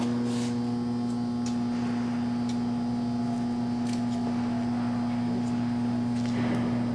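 A steady low hum that holds one pitch throughout, with a few faint scattered clicks.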